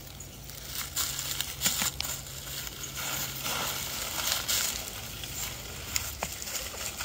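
Dry fallen oak leaves crunching and rustling in irregular bursts, with a few sharp crackles.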